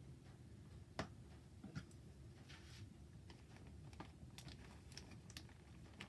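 Scattered light clicks and taps of kitchen utensils, a metal fork pressing and crimping the edge of a filled pastry against a plastic cutting mat. A sharper click comes about a second in.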